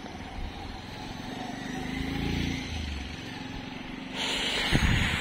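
A motorcycle engine passing on the road, its note swelling and then fading about two seconds in. Near the end comes a loud rush of noise with a few low thumps.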